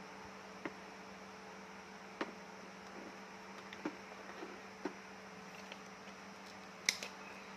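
Steady low electrical hum, with a handful of short sharp plastic clicks and taps from handling and fitting the side brushes onto the robot vacuum; the loudest click comes near the end.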